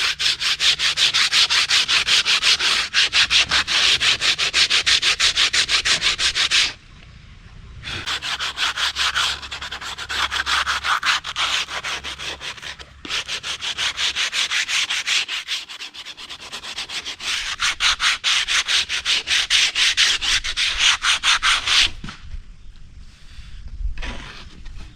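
Sandpaper rubbed by hand over a wooden board in quick back-and-forth strokes, pausing briefly twice and stopping a few seconds before the end.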